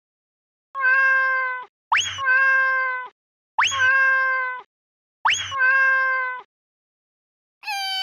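Cartoon cat meows, four held calls of about a second each, the last three opening with a quick upward squeak. A fifth, wavering meow begins near the end.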